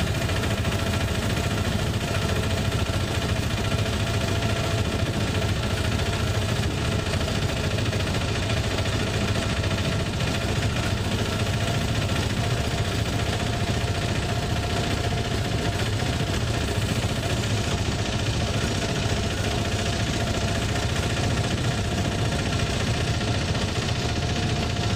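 Auto-rickshaw engine running at a steady, unchanging pitch as the vehicle drives along, heard from inside the driver's cab.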